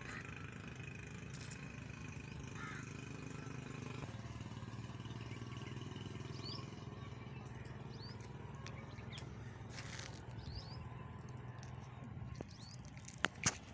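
Outdoor riverside ambience: faint, brief bird chirps scattered through over a steady low hum, with two sharp knocks near the end.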